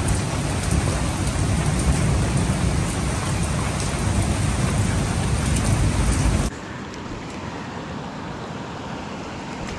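Loud, steady rush of river water with a low rumble. About six and a half seconds in it drops suddenly to a quieter, duller flow.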